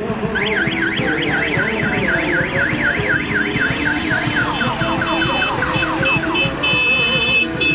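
An electronic siren cycling through its tones: a fast rising-and-falling yelp about five or six times a second, then quick falling sweeps, then a steady high beeping tone near the end, over crowd noise.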